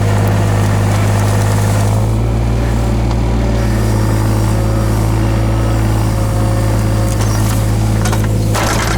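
Takeuchi TB016 mini excavator's diesel engine running steadily, with a short clatter near the end.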